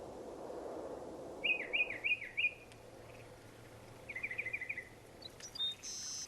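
Bird song: four quick rising-and-falling chirps, then a short trill about four seconds in, over faint outdoor ambience.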